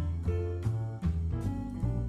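Background music: an upbeat instrumental with plucked guitar, a bass line and notes changing about twice a second.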